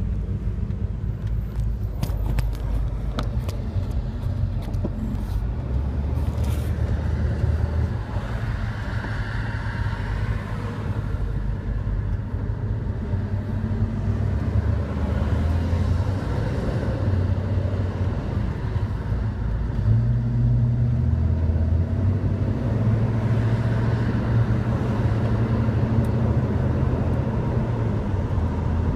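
Chevrolet Chevelle driving at highway speed, heard from inside the cabin: a steady low engine rumble with road noise, its pitch stepping up or down a few times as speed changes. A few light clicks in the first few seconds.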